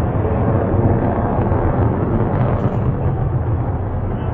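Distant fighter jet's engine noise, a steady deep rumble heard from the ground.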